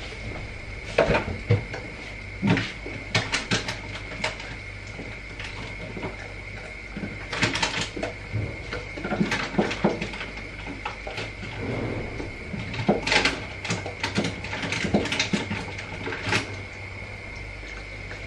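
A fridge door opened and its contents handled: scattered knocks and clinks of jars and containers at irregular intervals, over a steady faint sizzle from eggs frying in a pan.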